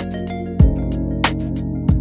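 Background music: sustained instrumental chords over a steady beat with punchy kick-drum hits.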